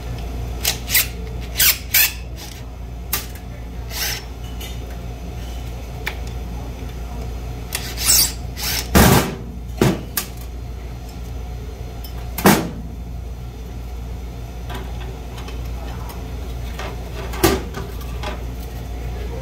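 Metal parts being handled on a stainless steel work surface: short clinks and knocks as a small refrigeration fan motor, its steel mounting bracket and hand tools are moved and set down. There are about a dozen separate strikes, the loudest about nine and twelve seconds in, over a steady low hum.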